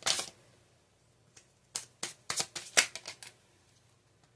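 Tarot cards being shuffled and handled: a crisp burst of card rustle at the start, then a run of quick card snaps and rustles about two to three seconds in.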